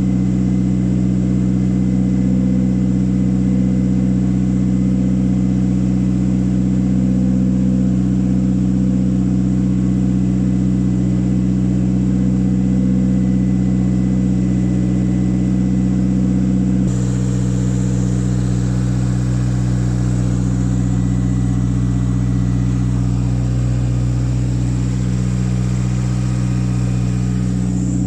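Toyota Starlet EP82's four-cylinder engine idling steadily, with an abrupt shift in the sound about two-thirds of the way through.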